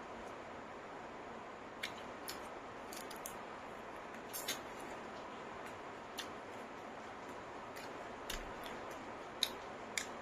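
Someone eating: faint, sharp, wet mouth clicks and smacks at irregular intervals while chewing, over a steady low hiss.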